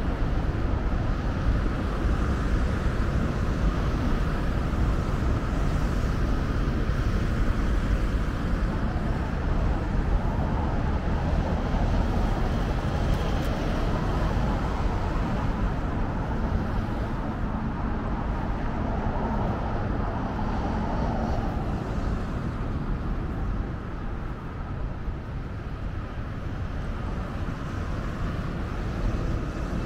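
Steady road traffic noise, with no single event standing out.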